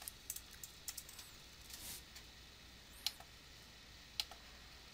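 Faint keystrokes on a computer keyboard in the first second or so, then a few mouse clicks near three and four seconds in.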